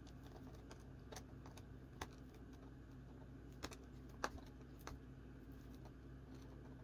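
Near silence: a faint, steady low hum with a few soft, scattered clicks, the loudest about 2 s and about 4 s in.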